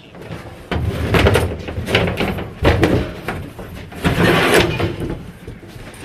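Closet in a camper being torn out by hand: wooden panels and framing banging and scraping in a run of loud crashes, about four big ones.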